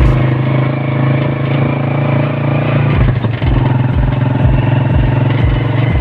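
Motorcycle engine running at a steady pace while riding, with a regular low thump about twice a second.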